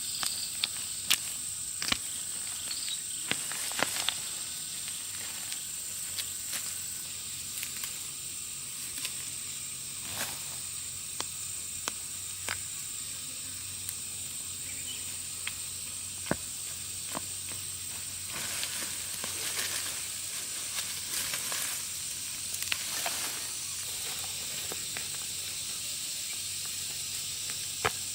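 Insects chirring in a steady high-pitched drone, with scattered sharp clicks and ticks at irregular moments.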